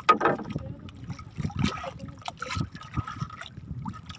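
Sea water lapping and splashing against the hull of a small outrigger boat, in short irregular splashes.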